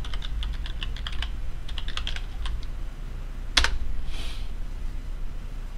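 Computer keyboard typing: a quick run of keystrokes, as a stock name is entered into a trading program's search box, then one much louder key strike about three and a half seconds in. A brief soft hiss follows the strike.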